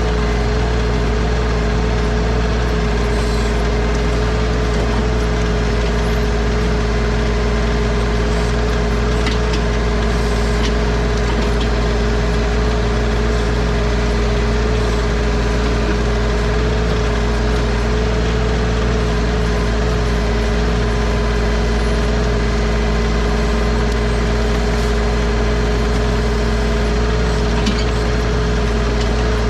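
Bad Boy 4035 compact tractor engine running steadily at constant speed, with a steady tone over its drone and a few faint ticks.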